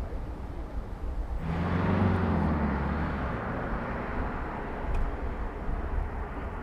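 A motor vehicle passing close by, its engine and tyre noise coming in suddenly about one and a half seconds in and fading away over the following seconds, over a steady low rumble.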